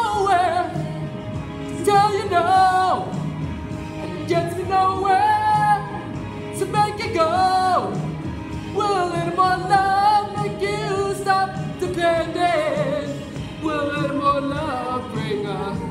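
A song with a solo voice singing long held notes with vibrato and sliding runs over steady backing music.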